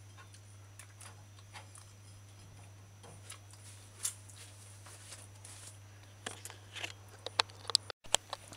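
Faint, scattered small clicks and ticks over a steady low hum; the clicks come more often toward the end.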